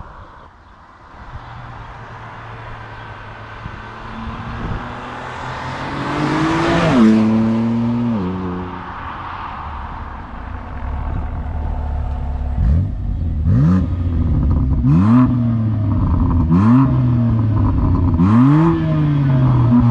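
BMW M4 Competition's 3.0-litre twin-turbo inline-six through its sport exhaust. It builds in pitch and passes by about seven seconds in, then is revved in about five quick throttle blips near the end, with short crackles from the exhaust.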